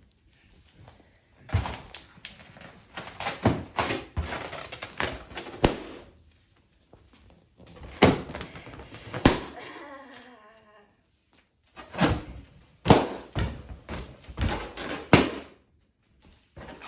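Pumpkin balloons being struck and popped: a string of a dozen or so sharp bangs and thumps at irregular intervals, with a short pitched sound about ten seconds in.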